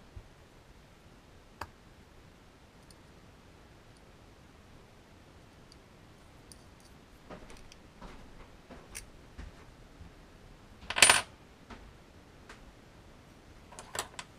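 Small machined metal suspension parts and screws clicking and clinking as they are handled and set on a workbench, with one louder metallic clatter about eleven seconds in.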